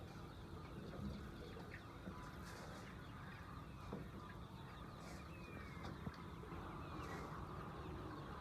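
Faint calls of a flock of chickens, with scattered chirps, a few short falling cheeps and light clicks over a steady low background.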